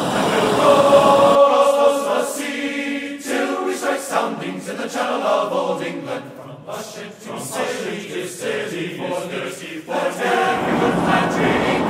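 Background music: a choir singing. A low rumble of shop noise lies under it and cuts off suddenly about a second and a half in.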